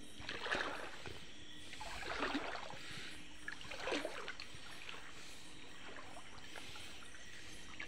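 Slow wading steps through shallow river water: three faint sloshing swishes about a second and a half apart, over a low, steady trickle of water.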